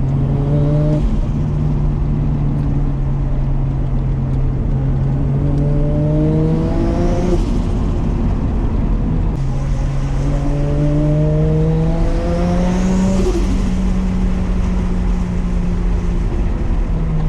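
Nissan Skyline R33's built RB25DET turbocharged straight-six under way, with a steady low engine drone. Twice it pulls up through the revs, with a rising high turbo whine, and each pull cuts off sharply as the throttle is lifted.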